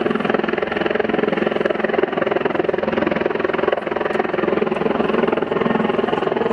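Helicopter running close by: a loud, steady rotor and engine drone that does not let up.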